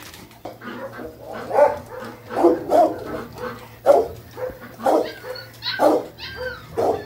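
A pack of dogs, mostly German shepherds, crowded together at a feed, barking in short irregular bursts. A higher whine comes near the end.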